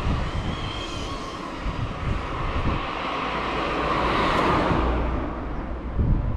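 A small hatchback car driving past on the road: its tyre and engine noise builds to a peak about four seconds in, then fades away.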